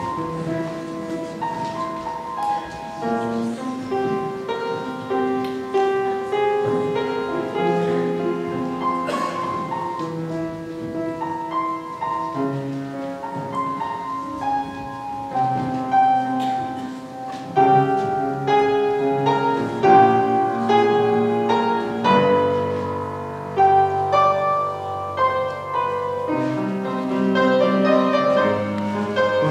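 Upright piano playing a slow accompaniment of held chords and single melody notes, each note struck and left to ring.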